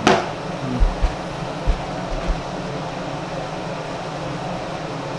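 Ventilation fan running steadily. A sharp click comes right at the start, then a few soft low thumps in the first couple of seconds.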